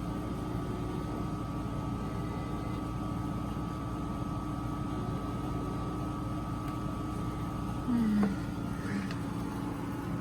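Tour boat's motor running steadily, a constant low hum. About eight seconds in, a short voice-like sound briefly rises above it.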